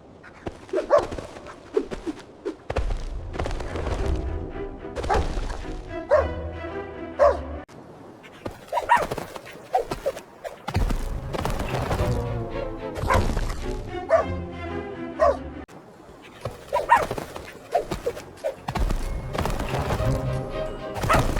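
Background music with a steady bass beat, with a dog barking and yelping at intervals over it.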